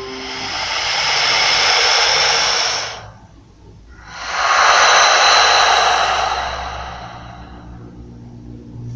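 A sound-effect preview playing two long whooshing rushes of noise, each swelling and dying away like a jet passing. The first lasts about three seconds; the second starts after a short lull, peaks about five seconds in and fades slowly.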